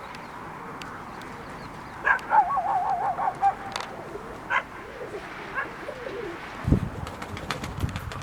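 Pigeons cooing, with a short warbling call about two seconds in. A low rumble comes in near the end.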